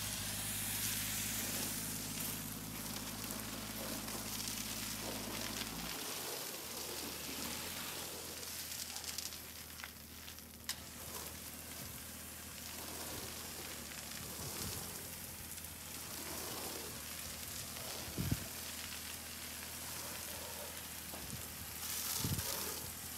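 Steady hiss of a pressure washer's water spray. A low, even engine hum under it cuts off about six seconds in, and a few short knocks sound later on.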